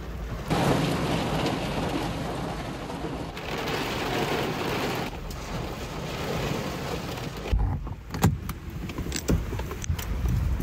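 Car driving in the rain: a steady hiss of rain and road noise, heard as several short clips joined by sudden cuts. In the last few seconds the hiss drops away, leaving a low rumble and a few knocks.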